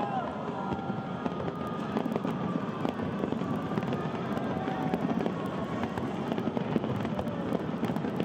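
Large aerial fireworks display going off continuously: a dense, unbroken stream of crackles and pops from many shells bursting at once.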